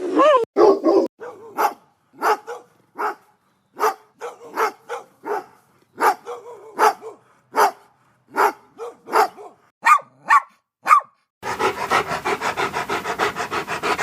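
Dog barking sound effect: a long run of short single barks, about one or two a second. Near the end it gives way to a dense, rapid, continuous burst of sound.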